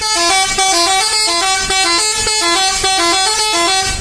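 Bus 'telolet' multi-tone musical air horn playing a fast tune of short stepped notes that repeats several times, loud, cutting off abruptly at the end.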